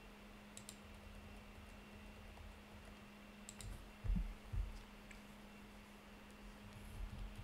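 Computer keyboard keys clicking a few times, sparsely, with two dull low thumps about four seconds in, over a steady faint electrical hum.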